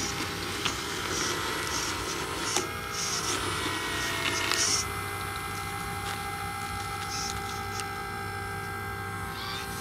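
Whine of a handmade 1/8-scale RC excavator's electric motors as it digs into dirt and raises a loaded bucket, the steady tones stepping in pitch a couple of times as the arm's movement changes.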